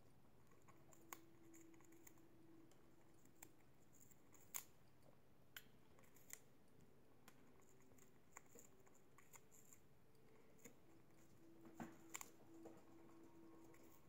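Faint, irregular little clicks and crunches of a budgerigar's beak biting into a stick of balsa wood held in its feet, with the two sharpest clicks close together about twelve seconds in.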